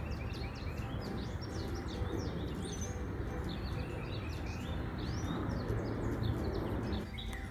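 Wild birds chirping with many short, quick notes over a steady rushing background noise; the rushing stops abruptly near the end while the chirping goes on.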